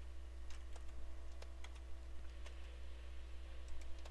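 Scattered, irregular computer keyboard keystrokes and mouse clicks, faint over a steady low hum.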